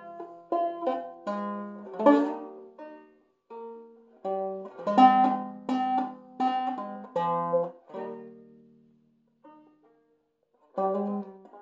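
Five-string banjo in G minor tuning (open G with the second string lowered to B flat) picking a minor-key melody note by note, with open strings ringing under it. The playing breaks off briefly near the end, then starts again.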